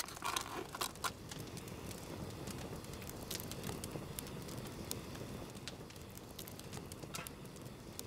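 Log fire crackling and popping in a fire pit: scattered sharp snaps over a steady low hiss, with a few louder snaps in the first second.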